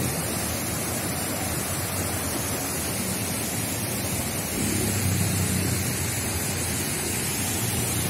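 Steady rushing noise of a waterfall mixed with light rain: an even, unbroken hiss.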